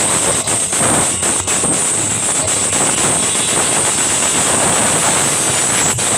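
Loud amplified music from a parade sound-system rig, coming through as a dense, noisy wash with faint regular beats.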